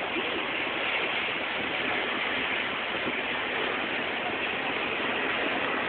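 Steady rushing noise from the top deck of a moving double-decker bus: air rushing past and the bus running, with no separate events standing out.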